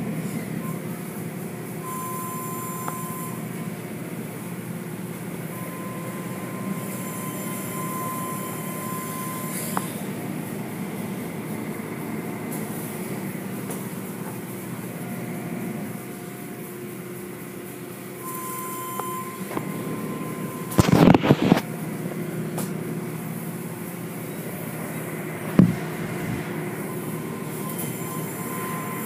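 Automatic tunnel car wash machinery running: a steady mechanical rumble of the hanging cloth wash curtains working over a car, with a thin whine that comes and goes. There is a short loud burst about two-thirds of the way through, and a sharp knock a few seconds later.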